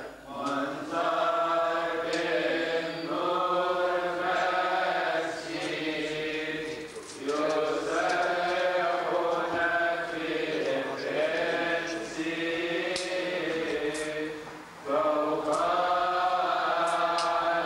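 Coptic Orthodox liturgical chant sung by a group of voices, long held notes in phrases of a couple of seconds with short breaks between them. A few faint high clicks are heard in the second half.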